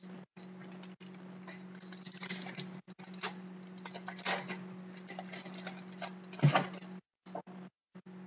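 Trading cards and a foil pack wrapper handled and rustled by hand, making quick clicks and crinkles, with a louder knock about six and a half seconds in. A steady low hum runs underneath.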